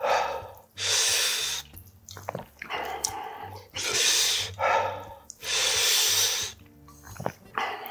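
A man blowing hard in about six hissy puffs, each under a second with short pauses between, cooling hot ramen noodles.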